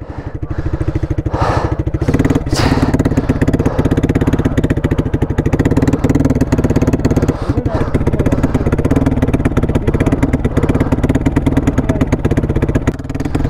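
Single-cylinder engine of a big-bore Hero Xpulse 200 running steadily at low revs. It is struggling to make power, which the riders put down to the thin air at altitude or to dust that has got inside it.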